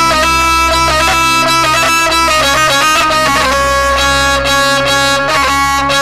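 Instrumental folk dance music between sung verses: a reedy melody moving in held, stepped notes over a steady low drone, with regular drum hits.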